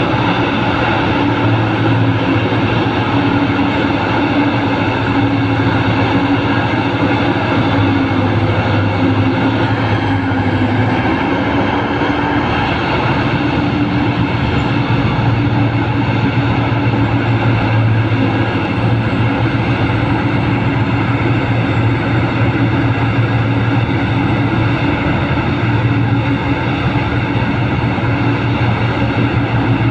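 Large hydraulic mining excavator's diesel engine running steadily under load, a loud continuous drone with a deep hum that eases briefly about eleven seconds in.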